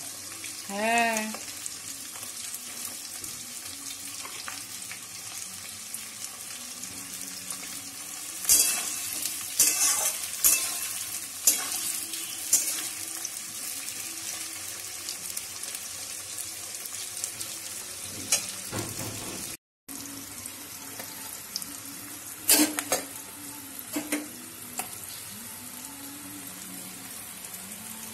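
Onion and green capsicum frying in hot oil in a steel wok with a steady sizzle. A metal spatula scrapes and clanks against the pan in several short bouts as the vegetables are stirred.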